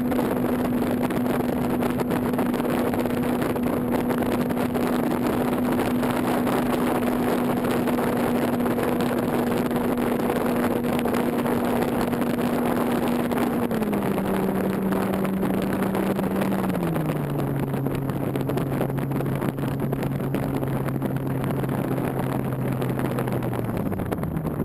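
Electric motor and propeller of a Parkzone Radian Pro motor glider running in flight as a steady hum over a rush of wind. The hum steps down in pitch twice, about 14 and 17 seconds in, as the throttle is eased back, then dies away just before the end as the motor is cut for gliding.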